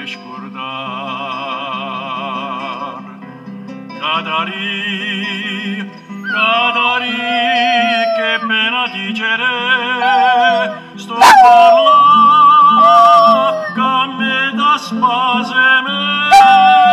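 Cairn terrier puppy howling along to a recorded song: long wavering howls blend with a singer's vibrato voice and the accompaniment, with falling-pitch howls about eleven seconds in and again near the end.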